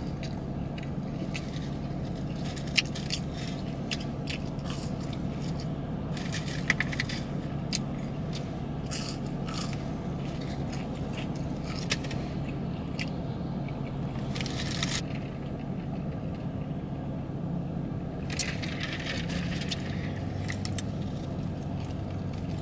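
A person eating a gyro and fries close to the microphone: chewing and biting, with scattered sharp clicks and short crinkly rustles, over a steady low hum.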